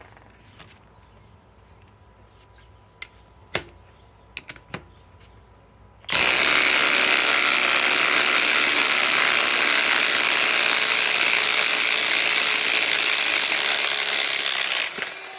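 A few light clicks, then a cordless impact wrench starts about six seconds in and hammers continuously for about nine seconds, backing out a thick lag bolt, before stopping near the end.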